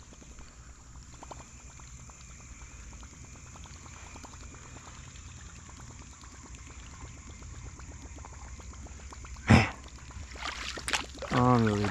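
A topwater musky lure splashes down hard on the creek's surface about nine and a half seconds in, then sputters and churns the water as it is worked back. Before that there is only faint steady background noise.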